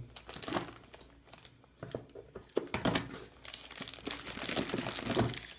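Packaging being handled during an unboxing, with irregular rustling and crinkling as the shower head set's parts are lifted out.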